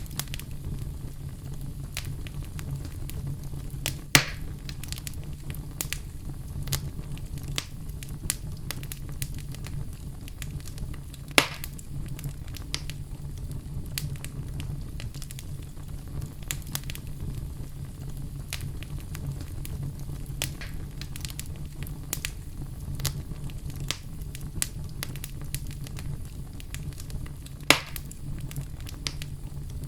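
Fire in a fireplace crackling over a steady low rumble, with frequent small snaps and three loud pops, about four seconds in, near the middle and near the end.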